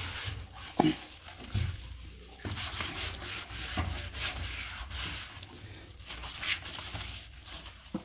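A cloth rubbing in repeated strokes over the glass door of a front-load washing machine as it is wiped clean. A few light knocks come in between, the sharpest about a second in.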